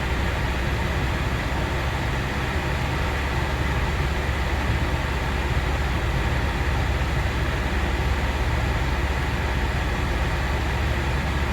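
2011 Honda CR-V running at idle with its air conditioning on: a steady low hum with an even hiss over it, with no change in engine speed.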